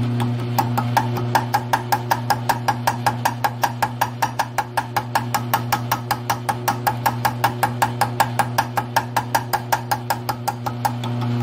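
Grizzly G1007 mill/drill running steadily with a 2-flute ball nose end mill cutting metal. Its motor hums underneath a rapid, even ticking of about five a second as the cutter bites, which starts about half a second in and stops just before the end.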